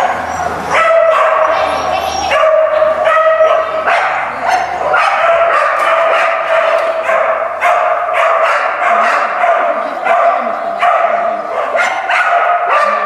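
A dog barking over and over, almost without pause.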